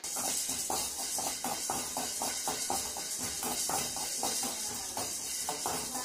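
A spoon stirring black peppercorns as they dry-roast in an aluminium kadai: repeated scraping and rattling strokes, several a second, over a steady hiss.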